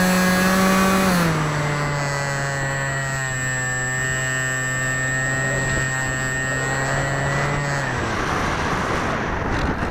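Hawking 2826 2200 Kv brushless outrunner motor turning a 6x4 APC pusher propeller on an AXN Floater-Jet RC plane, heard from the onboard camera: a steady buzzing hum that drops in pitch about a second in as the throttle is eased back, with a thin high whine above it. The motor cuts out about eight seconds in, leaving rushing air noise and a few rough scraping crackles as the plane comes down low over the grass.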